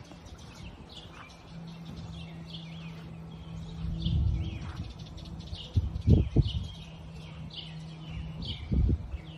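Steady low drone of a distant Pilatus PC-12 NGX turboprop cruising at about 22,000 ft, under birds chirping over and over. A few low rumbles come about four, six and nine seconds in.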